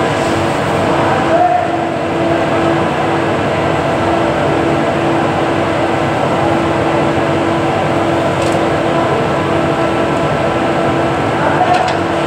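Steady mechanical drone with a constant hum, with a faint click about eight and a half seconds in and another near the end.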